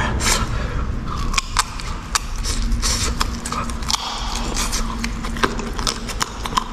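Close-up chewing of crunchy beef cartilage: a run of irregular crackling crunches from the mouth.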